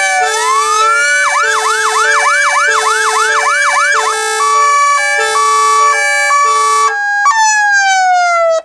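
Federal Signal PA300 electronic siren and two-tone air horns sounding together. The siren's wail rises into a fast yelp about a second in, then switches to a hi-lo two-note pattern about four seconds in, while the air horns keep alternating their two notes. Near the end the air horns stop and a single falling siren tone remains.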